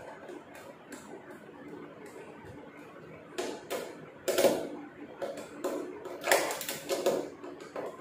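Screwdriver turning a screw into the metal mounting plate of a top-load washing machine's gearbox. It is faint at first, then from about three seconds in comes a run of clicking and scraping.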